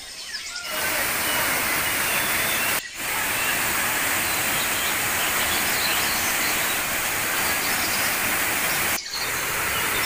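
Birds chirping in rainforest, then, under a second in, the steady rushing of a waterfall cascading over rocks takes over, with faint birdsong still above it. The rush breaks off for an instant twice.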